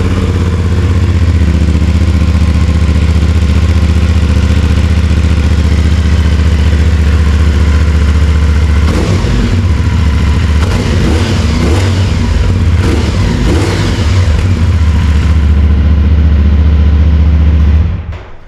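CFMOTO 450SS parallel-twin engine idling through its stock muffler, loud and steady, then shutting off near the end.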